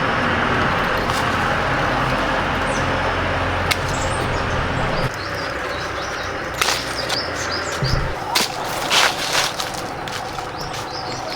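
Steady outdoor background noise with a low rumble that drops off about halfway, then several sharp clicks and snaps and a few faint high chirps.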